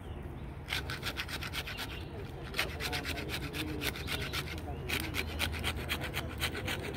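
Hand scraper rasping over the rough bark of a red oak trunk in quick repeated strokes, about five a second, with a short pause just past the middle. The strokes clear loose bark so that a dendrometer sensor can sit on a firm surface.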